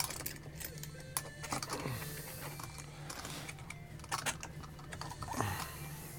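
Irregular clicks and light knocks from a metal G-clamp being worked on a wooden cigar-box tobacco press, its threaded screw and handle clattering as it is turned and repositioned.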